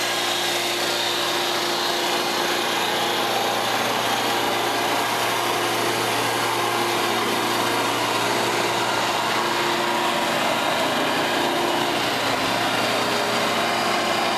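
Dust-suction blower of a Gallis 310B coal-mine roof bolter running steadily: a constant rushing hum with a steady tone under it, no change in speed.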